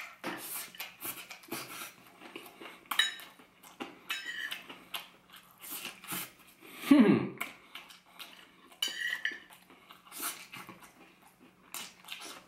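A metal fork clinking and scraping on a plate of chicken and rice, with close-up chewing. About seven seconds in comes a louder low hum from the eater, falling in pitch.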